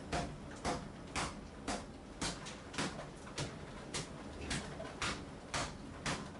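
Hammer blows on rotten, water-damaged subfloor, struck in a steady rhythm of about two a second, a dozen in all.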